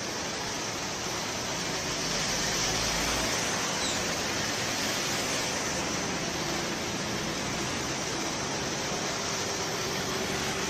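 Heavy rain falling in a downpour: a steady, even hiss with no breaks.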